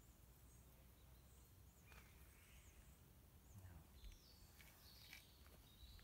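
Near silence: faint outdoor ambience with a few faint bird chirps from about two seconds in.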